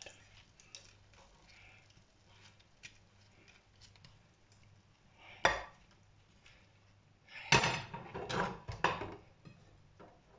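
Dishes and kitchen utensils being handled. There is one sharp clink about halfway through, then a quick run of clinks and knocks a couple of seconds later.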